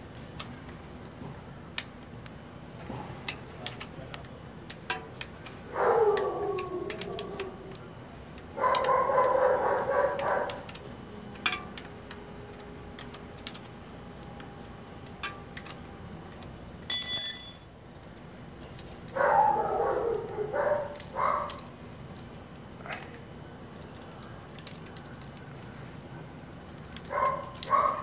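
A dog barking and howling in short bursts of a second or two, several times over, over small metallic clicks of an Allen wrench working the mounting screw of a Shimano cable-operated disc brake caliper. A short, high chirp about halfway through is the loudest sound.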